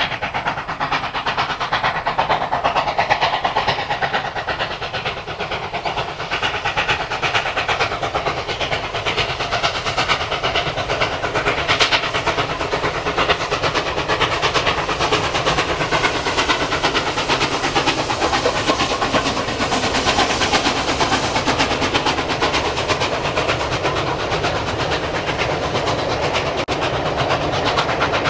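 Steam locomotive 5910, a NSWGR 59 class 2-8-2, working a passenger train, its exhaust beating in a rapid, steady rhythm as the train runs past.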